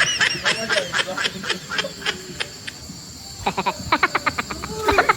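Men laughing hard in rapid, high-pitched bursts, which die down about halfway through and then start up again.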